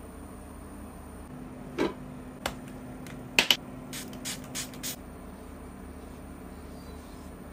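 Handling sounds of skincare items: a few sharp taps, then about four seconds in a run of four quick clicks, about three a second, as a pump dispenser bottle is pressed down through a cotton pad. A faint steady hum runs underneath.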